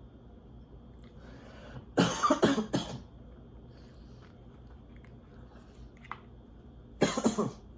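A man coughing: a fit of several coughs about two seconds in, and a shorter run of coughs near the end.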